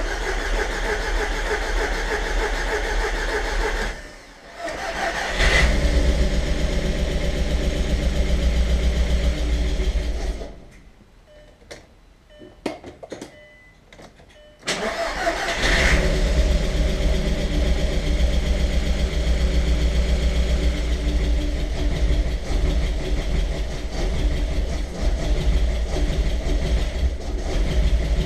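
Freshly rebuilt engine of an Audi TT mk1 being cranked on the starter in two long attempts, then catching about fifteen seconds in and running on. It runs rough and shaky, misfiring on two cylinders, which the owner put down to bad spark plugs. Hydraulic lifters clatter with a diesel-like knock.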